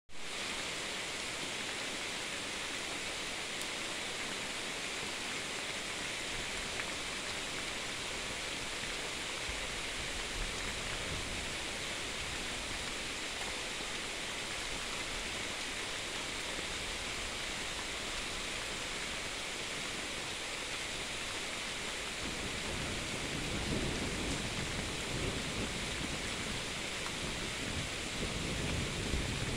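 Steady rain falling in a thunderstorm, with a low rumble of thunder coming in during the last several seconds.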